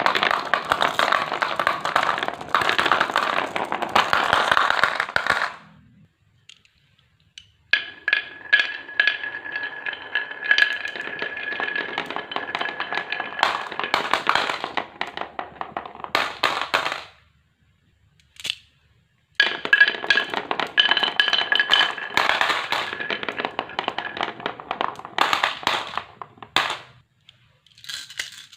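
Marbles rolling and clattering down wooden marble-run tracks: dense rapid clicks and rattles in three long stretches broken by short silences. A steady high ringing tone runs under the second and third stretches.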